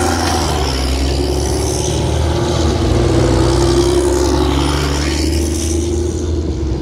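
Canadian Army LAV eight-wheeled armoured vehicles driving past close by on a gravel road, their diesel engines running steadily under the noise of the big tyres on gravel.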